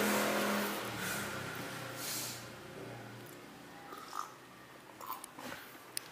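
A passing vehicle's engine, steady at first and fading away over the first two seconds, followed by quiet with a few faint clicks near the end.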